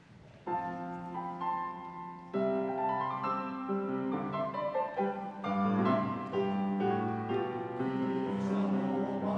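Grand piano playing chords as the introduction before a choir comes in. It starts about half a second in and gets louder a couple of seconds later.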